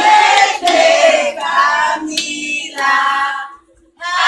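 A group of voices, women and children among them, singing a birthday song together. They sing in phrases, with a short break near the end.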